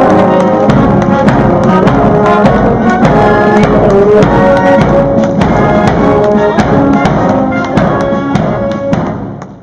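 Guards military marching band playing a march: brass, saxophones and clarinets over a steady drum beat. The music fades out near the end.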